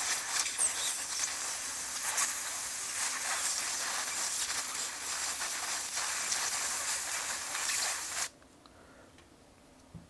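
Compressed air hissing steadily as it is blown into a laptop keyboard's key socket to dislodge debris; it cuts off suddenly about eight seconds in.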